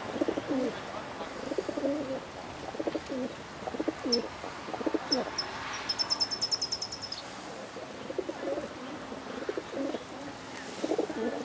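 Feral rock pigeons cooing, many short low throaty coos overlapping through the flock. About six seconds in comes a short run of rapid high chirps.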